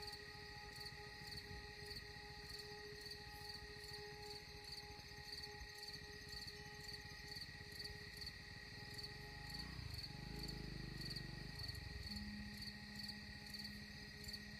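Insects, cricket-like, chirping in a steady regular pulse. A low rumble swells briefly about two-thirds of the way through.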